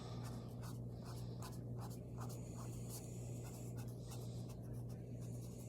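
Repeated light scratchy strokes of painting fur onto a surface, short and irregular, over a steady low hum.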